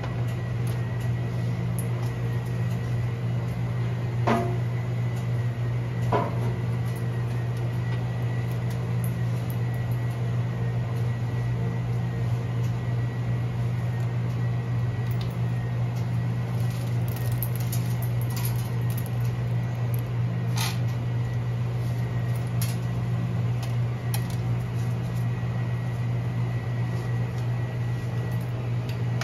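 A steady low hum with a faint high whine, and a few sharp clicks and knocks: about four and six seconds in, and again near twenty seconds.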